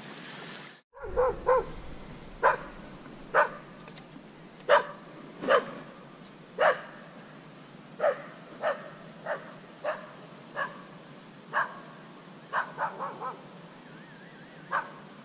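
A dog barking over and over: single barks about a second apart, with a few quick runs of two or three.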